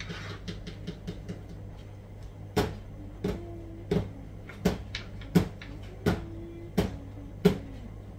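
Kitchen knife slicing red sweet pepper on a chopping board: light taps at first, then from about two and a half seconds in, eight sharp, evenly spaced chops, a little under one and a half a second.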